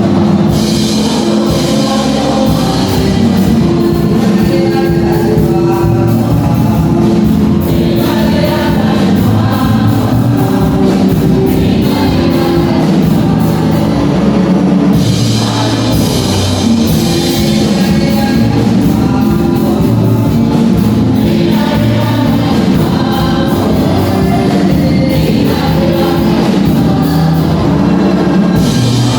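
Gospel-style music with choir singing over a steady beat.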